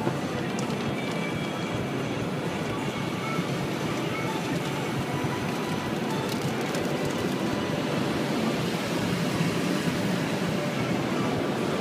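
Automatic car wash heard from inside the car: a steady rush of water spray and washing equipment working over the body and windscreen.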